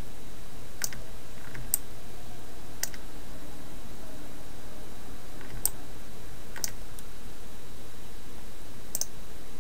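About seven scattered, irregular clicks from a computer mouse and keyboard over a steady hiss.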